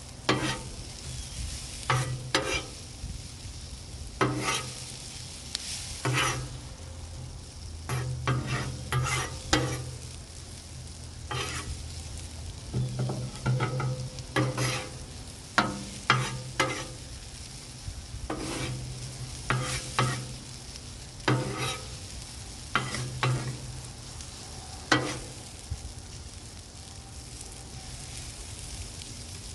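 Onions sizzling on a Blackstone flat-top griddle under a steady hiss, broken by frequent irregular sharp clacks and scrapes of metal on the steel plate as the onions are stirred and turned.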